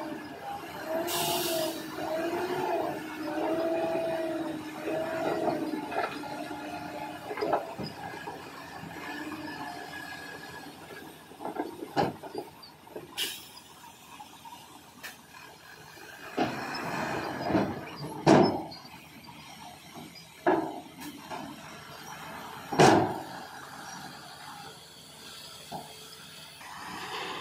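Heavy earthmoving machinery working stone fill. A wavering squeal runs for the first five seconds or so, then a scattering of sharp knocks and bangs follows, the loudest about 18 and 23 seconds in.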